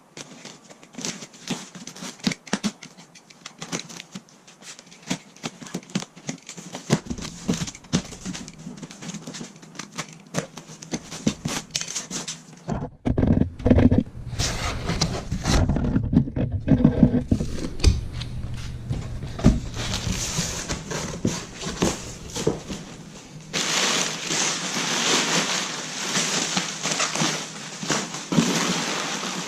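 A cardboard box being opened and its packaging handled: many small clicks and crinkling rustles, a run of heavier knocks and thumps about halfway through, and denser rustling near the end.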